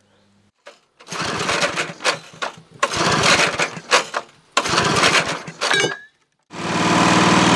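Briggs & Stratton lawnmower engine being pull-started on its recoil starter. Three noisy bursts, each about a second and a half long, come as the cord is pulled. After a short pause the engine catches about six and a half seconds in and runs steadily.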